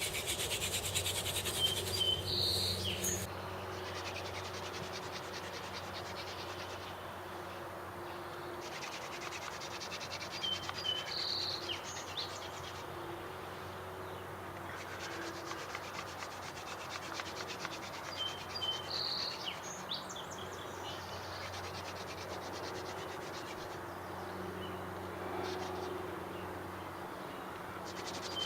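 Yucca hand-drill spindle spun between the palms, its tip grinding in the hearth-board socket with a steady scratchy rub, loudest for the first three seconds and quieter after. A short high chirp repeats about every eight seconds.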